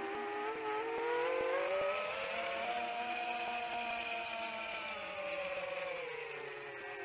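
Brushless motors and propellers of a 7-inch long-range FPV quadcopter whining in flight under GPS rescue. The pitch rises over the first few seconds as the throttle comes up, then falls back about two-thirds of the way through.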